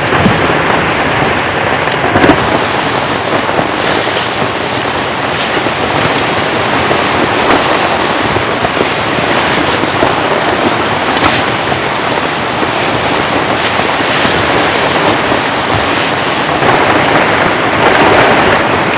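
Heavy rain falling steadily, with a dense patter of sharp drop hits throughout.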